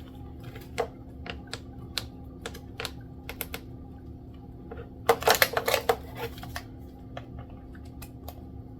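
Small screwdriver working tight screws on a plastic toy remote-control transmitter: scattered light clicks and ticks, with a louder rattling cluster of clicks about five seconds in that lasts roughly a second and a half. A faint steady hum runs underneath.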